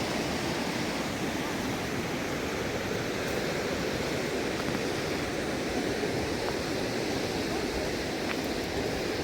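Steady rushing of flowing water, like a mountain stream running over rocks, holding an even level throughout.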